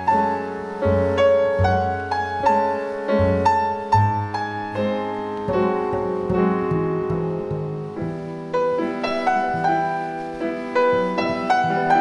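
Live piano trio music: a grand piano plays the melody and chords over a plucked double bass.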